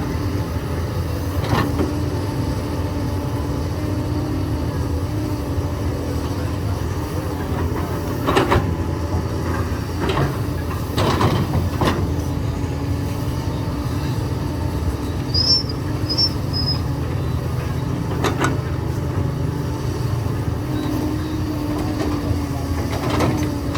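Excavator's diesel engine running steadily while digging limestone, with several sharp knocks and clanks of bucket and rock scattered through.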